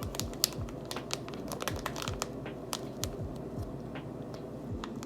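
Irregular light crinkling and clicking from hands seasoning raw chicken, over soft background music with a steady beat.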